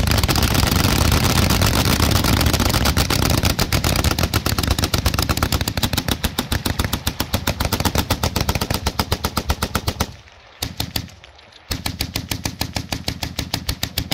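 Several water-cooled .303 Vickers machine guns firing together in a sustained volley. The fire thins so that separate shots can be heard, stops about ten seconds in, and then comes back as a short burst followed by a steady rhythmic burst near the end.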